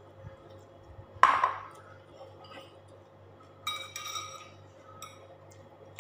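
Tableware clinking during a meal. A bowl heaped with empty green mussel shells knocks down with a short clatter about a second in. A little later a spoon clinks a few times against a porcelain bowl.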